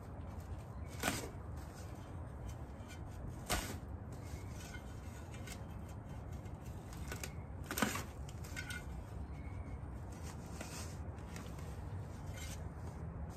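Garden shovel blade chopping into dry soil: three short sharp strikes, about a second in, a few seconds later and about eight seconds in, over a steady low hum.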